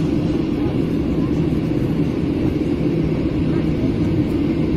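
Steady rumble of an airliner rolling along a wet runway, engine and wheel noise heard from inside the passenger cabin, with a low steady hum throughout.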